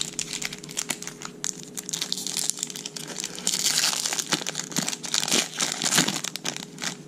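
Foil wrapper of a trading-card pack crinkling and being torn open, a dense crackle with sharp clicks, loudest in the middle stretch.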